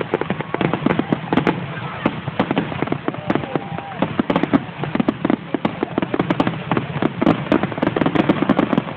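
Fireworks display: a dense barrage of aerial shell bursts and crackling, with bangs and pops following one another several times a second without a break.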